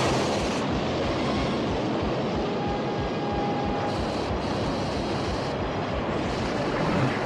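Cartoon sound effect of floodwater rushing down through mountains: a loud, steady rushing noise over a deep rumble.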